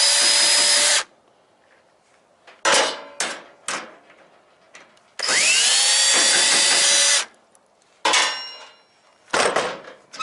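A power tool spinning up with a rising whine and running steadily in two bursts of about two seconds each, cutting brass ends off the dryer's wiring, with several sharp metal knocks and clatters between the bursts.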